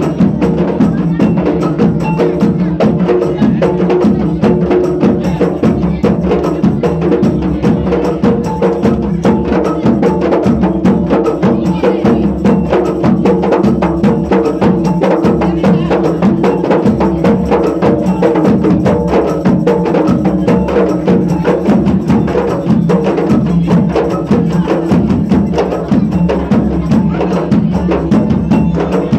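Music driven by fast, steady percussion: a rapid run of even strikes over sustained pitched tones, with no pause.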